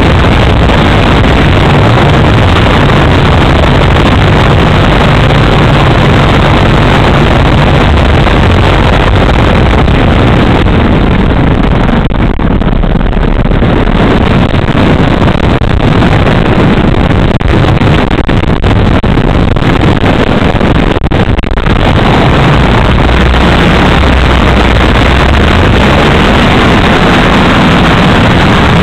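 Two-stroke gasoline 3W engine of a giant-scale RC aerobatic plane running in flight, heard close from the airframe, loud and mixed with rushing wind noise. Its low drone shifts in pitch through the manoeuvres and eases off briefly about twelve seconds in and again near twenty-one seconds.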